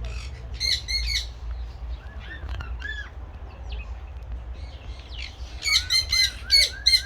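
Birds squawking repeatedly: a few harsh calls about a second in, some shorter rising-and-falling chirps a second or two later, then a quick run of loud squawks near the end.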